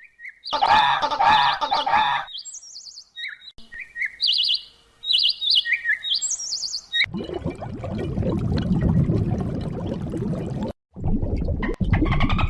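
Separate animal sound clips in sequence. First comes a loud wavering call with several stacked pitches, then a run of short, high bird chirps, and then a low, noisy stretch with no clear pitch that breaks off once and resumes near the end.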